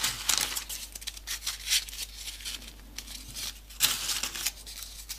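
Folded paper triangle pieces rustling and crinkling as they are handled and pushed into the pockets of a modular 3D origami model, in irregular short scrapes; the loudest comes about four seconds in.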